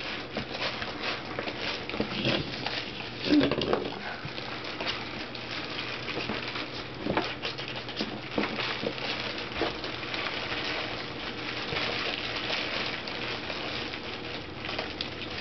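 Sheltie puppies rooting in a shoebox lined with heavy plastic, keeping up a continuous crinkling and rustling of the plastic.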